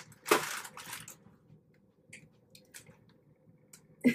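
Plastic wrapping of a multipack of instant ramen crinkling as it is handled: a rustle about half a second in, then a few faint crackles. A short, louder sound comes just before the end.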